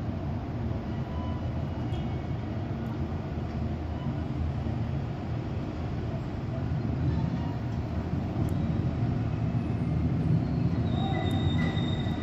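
Thunder rumbling low and continuously after a lightning flash, growing louder about seven seconds in as the roll arrives. A faint high squeal sounds near the end.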